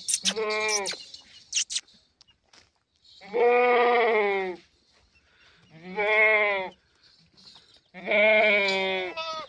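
Goat bleating four times: a short bleat at the start, then three long, wavering bleats about two seconds apart. A few sharp clicks come between the first and second bleat.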